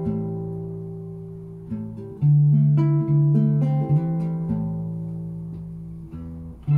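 Acoustic guitar picking single notes over a low bass note as an instrumental intro, with a louder attack about two seconds in, the notes ringing and fading in between.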